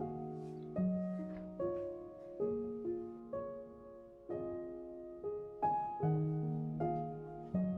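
Soft background piano music: slow, gentle notes struck every second or so and left to ring.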